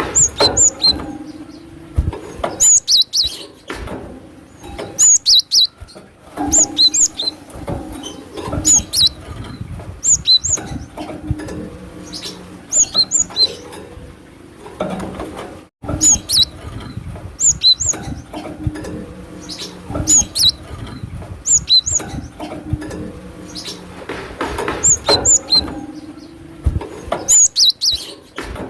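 Cinereous tit (glatik batu) singing: short phrases of sharp, high whistled notes repeated about every two seconds, as used for a lure call.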